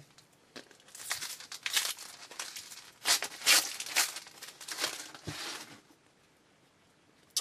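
Foil trading-card pack wrapper being torn open and crinkled, a dense run of crackling for several seconds that stops about two seconds before the end.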